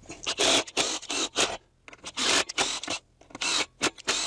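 Makita cordless driver sinking Torx screws into a wooden block in a series of short trigger bursts. The screws are driven and redriven to pull the block tight against the wood and stop screw jacking.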